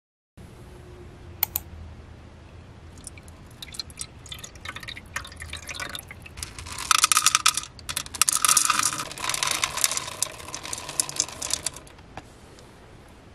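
Water poured from a jug into a clear plastic cat bowl, trickling and dripping. Then dry cat kibble is poured from a container and clatters into a plastic bowl for several seconds, the loudest part.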